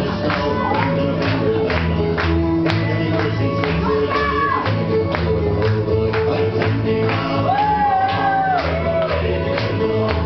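Lively music with a quick steady beat, about three beats a second, and a melody line over it.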